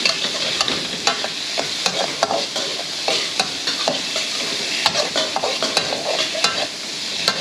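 Chicken breast, garlic and chili sizzling in hot oil in a wok while being stir-fried, with a spatula scraping and clacking against the wok in short irregular clicks.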